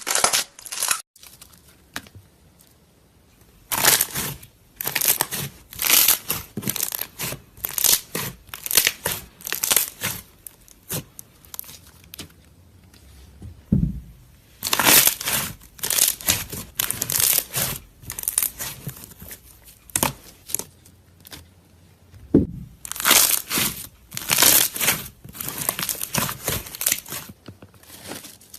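Slime being squeezed and pressed by hand, making dense crackling in runs of a few seconds, with two short pauses between.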